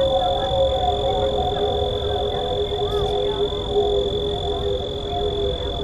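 Several held droning tones that waver slowly in pitch, layered under a steady high-pitched whine.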